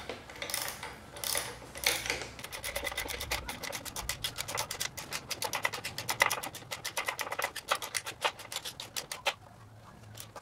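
Hand ratchet turning a 16 mm socket to run in a transmission mount bracket bolt. A few scraping strokes come first, then a rapid, even run of pawl clicks for several seconds that stops shortly before the end.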